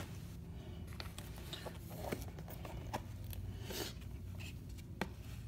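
A blade cutting the tape seal on a small cardboard box and the lid being lifted off: faint scraping and rustling of cardboard, with a few sharp clicks, one at the start and one about five seconds in.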